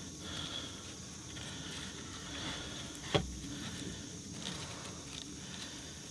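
Quiet rustling of tarred nylon bank line as a hank is handled and a loop is threaded around wooden poles, with one sharp click about three seconds in.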